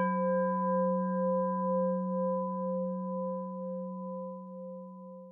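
A meditation singing bowl struck once, ringing with a deep hum and a few higher overtones that waver slightly and fade slowly, the highest dying away first.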